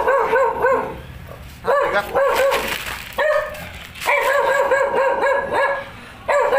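A dog barking in quick, high-pitched runs of barks, several runs with short pauses between them.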